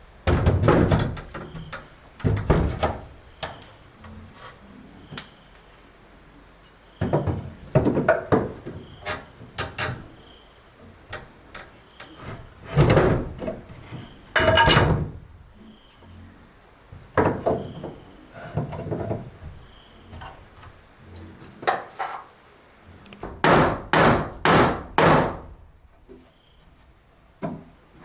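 Irregular knocks and thuds of wood being worked or handled, with a run of four quick, evenly spaced blows near the end, over the steady high chirring of insects.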